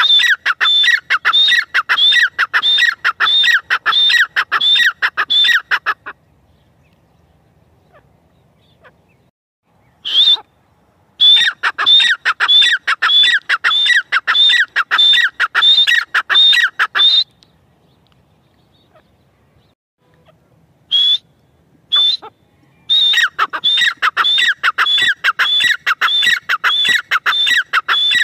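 Grey francolin calling: a fast run of loud, shrill repeated notes, a little over two a second. The calling comes in three long bouts split by pauses of a few seconds, with a few single notes in the gaps.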